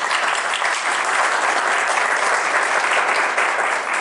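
Audience applauding steadily, a dense sustained clapping from a roomful of people.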